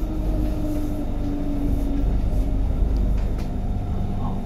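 Bangkok BTS Skytrain electric train running, heard from inside the carriage: a steady low rumble with a faint motor whine that slowly falls in pitch over the first two seconds.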